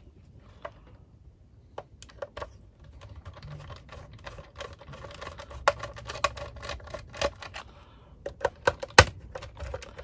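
Small precision screwdriver turning screws out of the plastic base of an HDD docking station: quick small clicks and taps of the bit and the plastic case, beginning about two seconds in, with one sharper click near the end.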